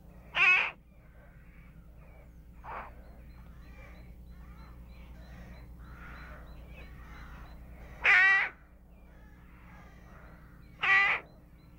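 Crow cawing: three loud, short single caws, about half a second in, about eight seconds in and near the end, with a fainter call near three seconds. Faint chatter and a low steady hum lie underneath.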